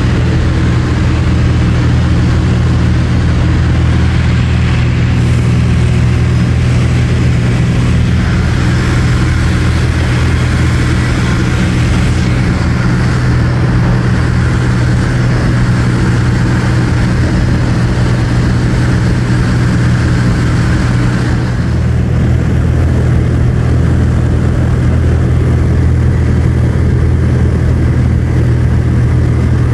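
Light aircraft's piston engine and propeller droning steadily in flight, heard from inside the cockpit. The airy hiss above the drone lessens about two-thirds of the way through, while the low engine note holds steady.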